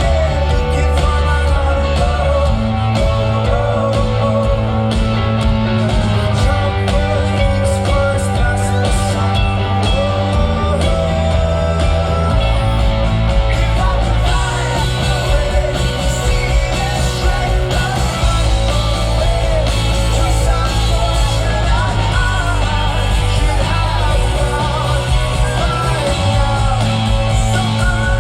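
Live rock band playing with a lead singer: drums, bass, guitars and vocals at full concert volume, the bass line changing note every couple of seconds under a steady beat.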